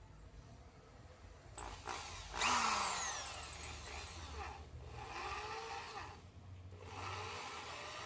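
DeWalt DWD502 electric drill motor run in short bursts, each time speeding up and winding back down. The loudest burst comes about two and a half seconds in.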